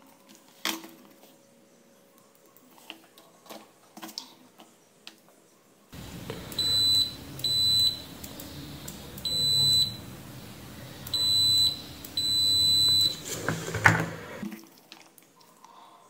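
Digital multimeter's continuity buzzer sounding five short, high-pitched beeps as a computer mouse's microswitch is tested. Each beep marks the meter finding continuity. Faint small ticks come before the beeps, and a sharp click comes near the end.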